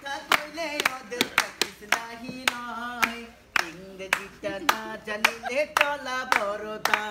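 Hands clapping in a steady beat, about two to three claps a second, along with a voice singing a Bengali song.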